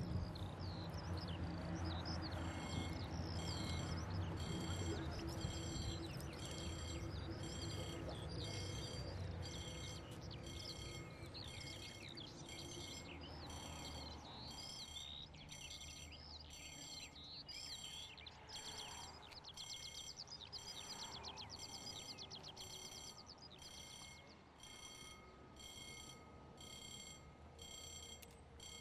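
Birds chirping, with a low hum that fades away about ten seconds in. A railway level-crossing warning alarm beeps in an even, fast repeat, growing clearer through the second half: the signal that a train is approaching.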